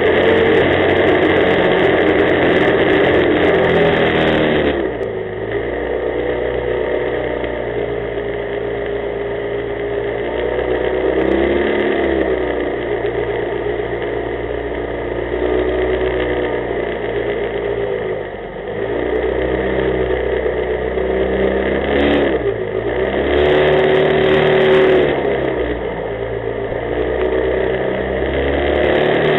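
Small jet boat's engine running hard under way. Its pitch drops and climbs back several times as the throttle is eased and opened again, over a steady hiss.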